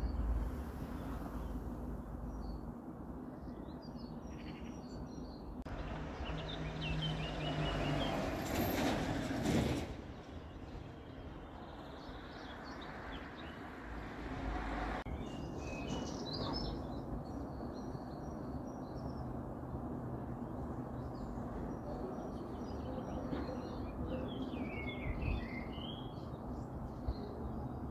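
Outdoor street ambience with small birds chirping and twittering on and off over a low steady background hum. A louder rushing swell of noise builds from about six seconds in and cuts off abruptly near ten seconds.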